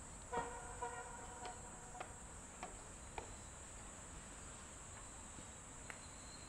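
Insects chirring steadily at a high pitch. About a third of a second in, a brief, slightly louder tonal sound with several overtones lasts about a second, and a few faint clicks follow.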